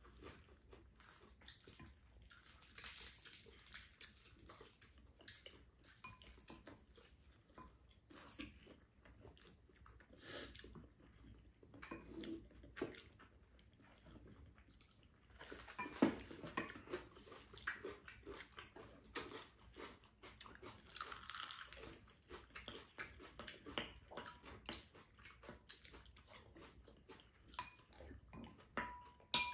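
Quiet eating sounds from two people at a table: chewing, soup sipped from spoons, and spoons and chopsticks clicking against ceramic bowls, with a brief ringing clink near the end.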